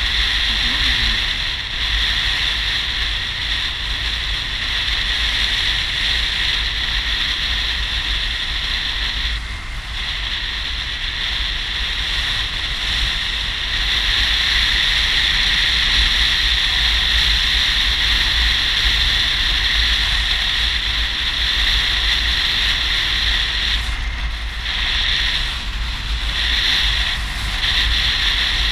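Wind rushing over the microphone of a touring motorcycle on the move, a steady noise with a low rumble beneath it. The rush thins briefly about a third of the way in and a few times near the end.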